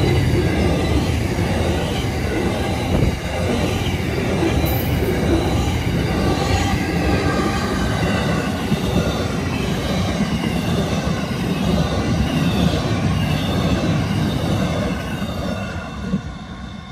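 Container freight train wagons rolling past, steel wheels on the rails giving a steady rumble with thin high squealing tones over it. It fades near the end as the last wagon goes by.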